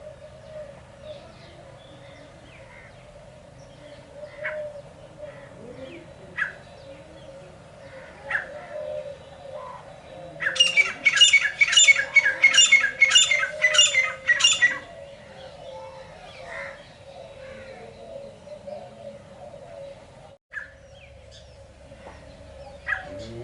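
Francolin (teetar) calling: a loud, harsh run of about seven quickly repeated notes lasting some four seconds, about halfway through. Scattered short single calls come before and after it, over a steady low drone.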